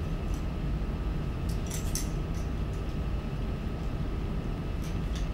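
Room tone: a steady low hum, with a few faint clicks and clinks about one and a half to two seconds in and again near the end.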